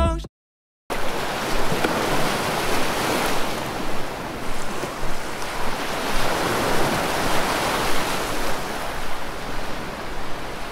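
Ocean surf, a steady rushing noise that swells and eases gently. Music cuts off right at the start, followed by a brief silence before the surf sound comes in.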